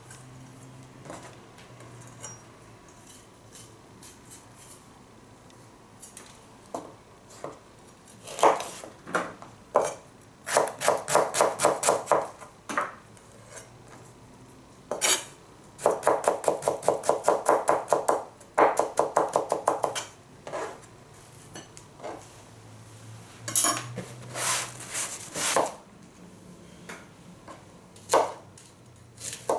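Chef's knife chopping on a plastic cutting board in several quick runs of evenly spaced strokes, about eight a second, separated by pauses and a few single cuts.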